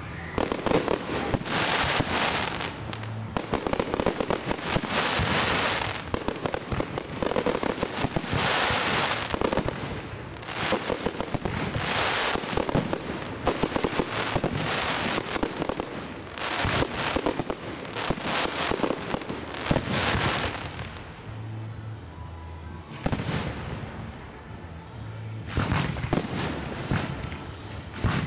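Fireworks display going off: volley after volley of crackling cracks and bangs in dense clusters a second or two apart. The bursts thin out for a few seconds about two thirds of the way through, then pick up again near the end.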